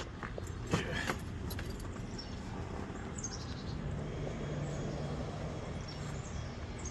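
Clicks and knocks of someone climbing into a golf cart and handling its fittings, over a low steady rumble, with a faint hum for a couple of seconds in the second half.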